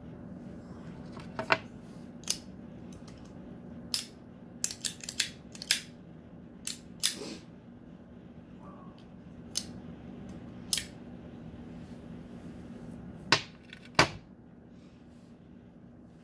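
A string of sharp clicks and light taps, about fifteen in all and loudest near the end, from small objects being handled on a tabletop, over a steady low hum.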